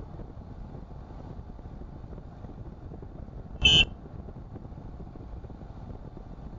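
Steady road and engine noise of a car driving, heard from inside the cabin, with a single short, shrill electronic beep lasting about a quarter second a little over three and a half seconds in.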